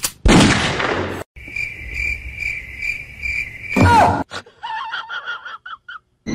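Cricket chirping in an even pulse about twice a second, after a loud noisy burst at the start. Near four seconds a loud burst with a falling squeal cuts in, followed by a quick run of short, high pitched calls.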